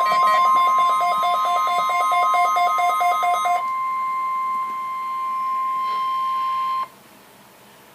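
NOAA Weather Radio 1050 Hz warning alarm tone sounding steadily as the weekly test of receivers' alarms, with a second, lower alarm beeping rapidly over it, about five beeps a second, until a little before halfway through. The steady tone cuts off suddenly near the end, leaving a faint hiss.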